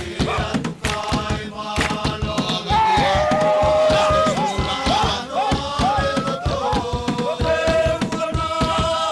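Group of voices singing and chanting over a fast, steady percussion beat, with short rising-and-falling cries repeated through the middle: the song that accompanies a Futunan mako dance.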